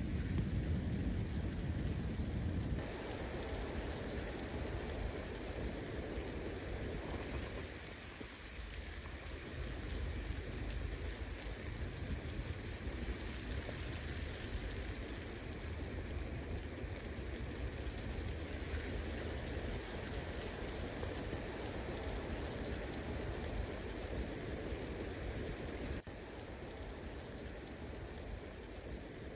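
Steady hiss and patter of wet snow falling on the tent and the surrounding woods during a snow storm, with a shift in tone about three seconds in and again near the end.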